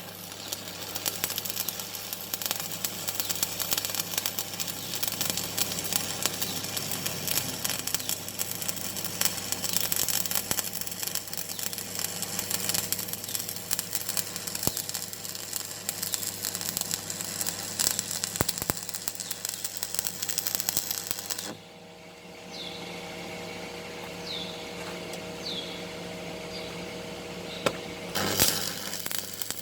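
Stick-welding arc crackling and sizzling steadily as a flange is welded with 2.2 mm electrodes. The arc breaks off about 21 seconds in, and after a pause of several seconds it strikes again near the end.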